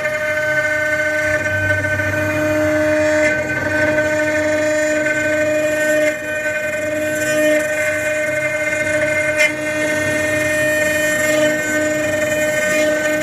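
A 6090 CNC engraving machine's spindle running with a steady high whine while its bit carves a wooden log turning on the rotary axis.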